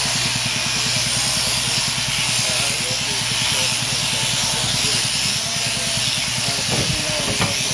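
Overhead-drive sheep-shearing handpiece running steadily through the fleece: an even hiss over a rapid, regular mechanical chatter. A few sharp knocks near the end.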